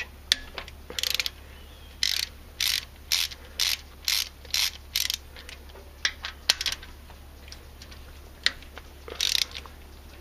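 Half-inch ratcheting wrench clicking in short bursts about twice a second as the rocker arm bolts on a Jeep 4.0 cylinder head are backed out, pausing and starting again near the end.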